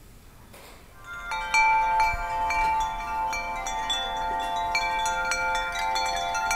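Chimes ringing: many bell-like struck notes, overlapping and sustaining, starting about a second in after a brief hush.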